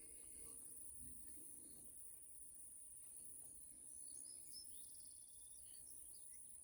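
Near silence: faint outdoor ambience with a steady high-pitched whine and a few faint bird chirps about four to five seconds in.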